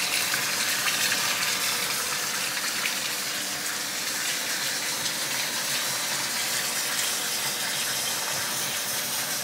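Kitchen faucet running a steady stream into a stainless steel sink, the water splashing over hands being rinsed under it.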